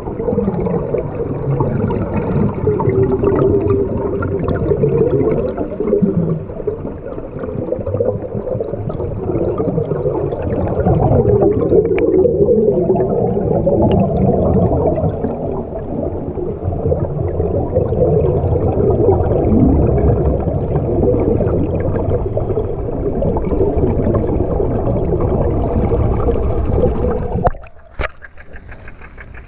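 Muffled underwater churning and gurgling of water and air bubbles, cutting off sharply near the end as the camera breaks the surface.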